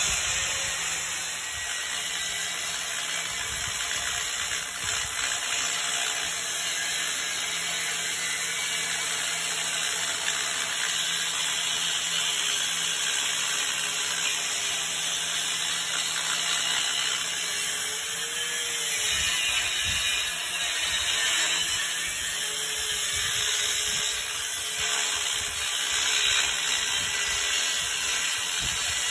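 Corded angle grinder running under load, its wheel cutting into steel.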